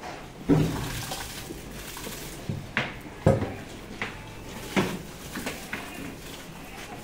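A plastic tub knocking and scraping against a plastic cattle feed trough as feed is tipped into it. There are several sharp knocks, the loudest about half a second and about three seconds in.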